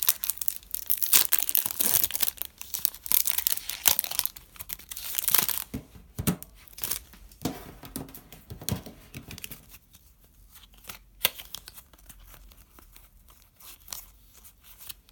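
Foil trading-card packet being torn open and crinkled, a dense crackling for about the first six seconds. Then the cards are slid out and handled, with scattered light scrapes and taps that grow sparser and quieter toward the end.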